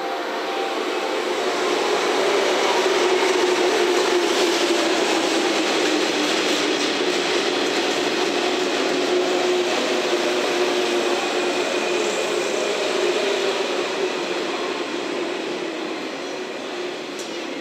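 A six-car JR West 115-series electric train running past along the platform: a dense, steady rumble of wheels and running gear with a whine that slowly falls in pitch. The sound is loudest a few seconds in and eases off toward the end.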